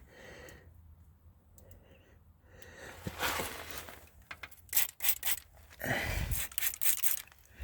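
Rubber rejuvenator being sprayed onto a car's front suspension bushings and boots: several short hissing spray bursts from about three seconds in, with some handling noise.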